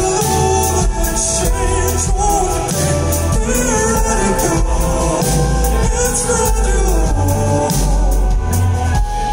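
Rock band playing live through a PA, heard from the audience: a sung vocal over keyboards, guitar, drums and a heavy pulsing bass.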